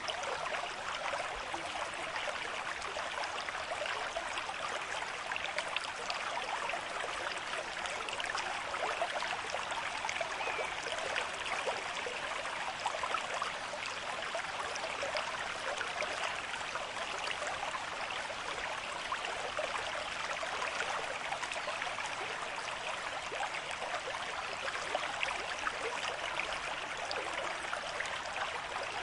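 River stream at moderate flow: water running steadily, with a constant rush full of small quick splashes and burbles.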